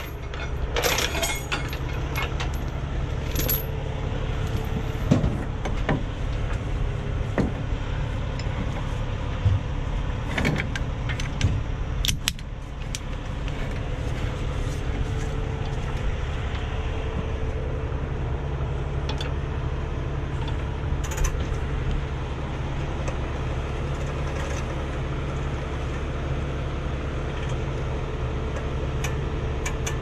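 Heavy truck engine idling steadily, with scattered metal clinks and rattles over the first dozen seconds.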